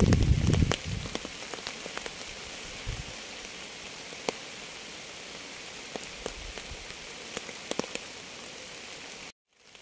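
Steady rain falling: an even hiss with many sharp, scattered drops ticking. A loud low rumble fades out in the first second, and the sound cuts out suddenly for about half a second near the end.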